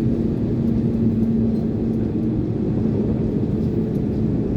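An Iveco concrete mixer lorry's diesel engine and road noise heard inside the cab while the lorry is under way: a steady low rumble with a held engine tone that fades away a little past halfway.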